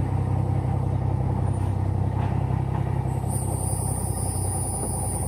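A motor vehicle's engine idling steadily, a low even hum. A thin high-pitched whine joins in about three seconds in.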